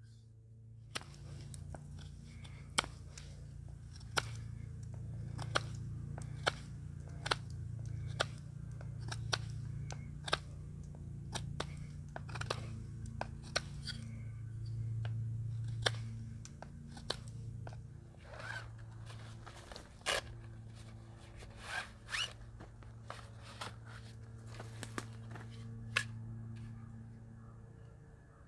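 Irregular sharp clicks and crunches, a few louder snaps among them, over a low steady hum.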